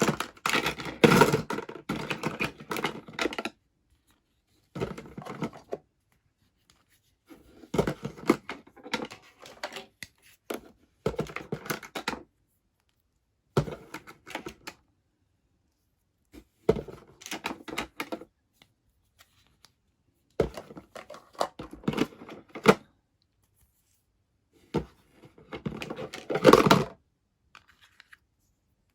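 Small toy kitchen pieces and their packaging being handled and unpacked: about eight bursts of quick clicking, tapping and rustling, with silent pauses between them.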